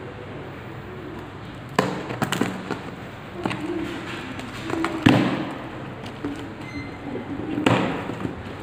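A taped cardboard parcel being handled and torn open: bursts of crackling plastic wrap and tape with sharp knocks of the box. The bursts come in clusters about two, three and a half, five and seven and a half seconds in, the loudest about five seconds in.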